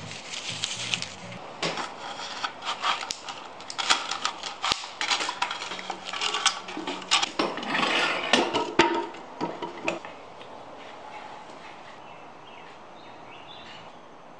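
Woodworking by hand at a workbench: a run of wooden knocks, clatter and short scraping strokes from a hand plane, shavings and a bench vise being handled. The clatter stops about ten seconds in.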